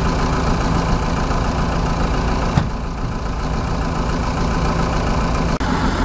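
Diesel dump truck engine running steadily at low speed, with a sharp click about two and a half seconds in and a brief dropout in the sound near the end.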